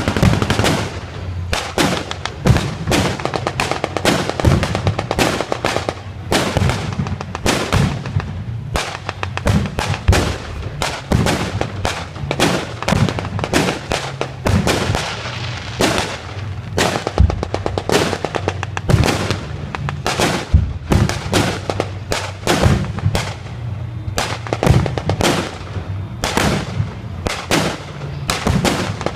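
Rapid, irregular bangs and cracks, several a second, from blank-firing guns and pyrotechnic charges in a mock air-raid battle, with a steady low hum underneath.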